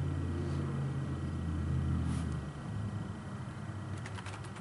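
A low droning hum with several steady pitches, which fades out about two and a half seconds in. Near the end, keys clicking on a computer keyboard as a command is typed.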